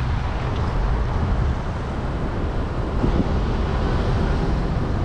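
Car driving slowly: a steady low rumble of engine and tyres on asphalt, with some wind noise.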